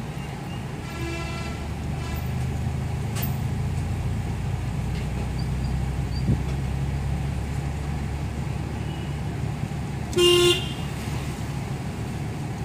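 Steady engine and road hum inside a moving car's cabin. A faint short horn toot comes about a second in, and a louder short vehicle horn honk about ten seconds in.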